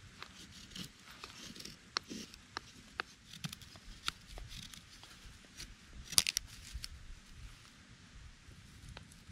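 Scattered small clicks and crinkly rustling of things being handled, with a louder cluster of clicks about six seconds in.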